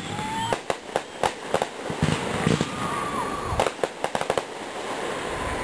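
Aerial fireworks shells bursting overhead: a string of sharp bangs that come in quick clusters, several close together, with short gaps between the clusters.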